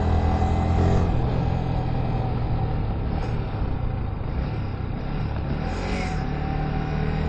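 Sport motorcycle engine on track: its note drops about a second in, runs steadier and lower through the middle, and starts to climb again near the end.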